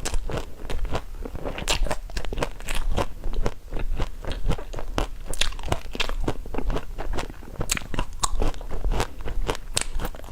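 A person biting and chewing crunchy food, a quick irregular run of sharp crunches.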